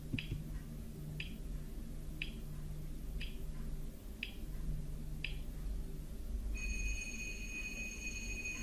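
Quiz countdown-timer sound effect: six short ticks about a second apart, then a steady high alarm-clock ring starting about two-thirds of the way in, signalling that time is up.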